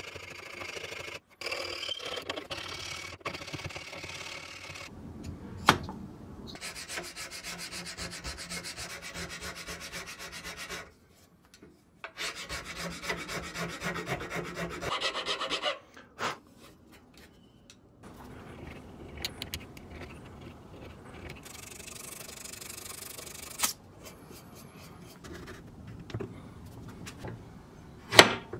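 Metal file rasping on the end of a wooden hammer handle as it is shaped to fit the head, in several runs of quick strokes broken by short gaps. A single sharp knock near the end.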